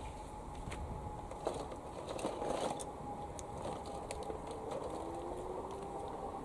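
Scattered light clicks and rustling as the edge of a fine-mesh garden net is handled and fixed down, over a faint steady high tone.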